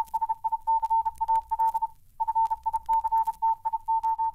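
Morse code beeping: one steady high tone keyed on and off in quick short and longer beeps, breaking off briefly about two seconds in, over light crackle and a faint low hum.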